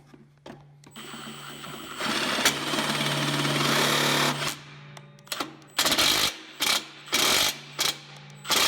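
Power drill driving a self-drilling screw: one steady run of about two and a half seconds, then a series of short trigger bursts.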